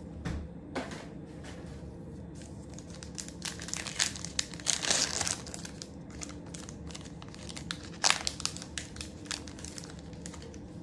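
Panini Prizm card pack's plastic-foil wrapper crinkling and tearing as it is opened, in irregular crackly bursts. The busiest stretch comes about four to five seconds in, with another sharp crackle about eight seconds in.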